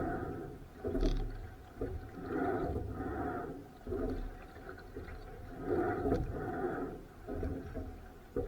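Rowing strokes about every three seconds: on each stroke the oars give a two-part creak in their oarlocks, with a sharp knock in between, over a low rumble of wind on the microphone.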